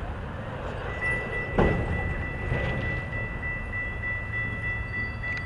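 Railroad grade-crossing warning bell ringing steadily as a high, slightly pulsing tone, the sign that the crossing is activated for an approaching train. A low rumble runs underneath, and a single loud knock comes about one and a half seconds in.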